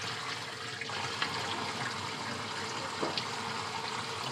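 Water running steadily over a piece of ice to melt it, with a few faint light clicks.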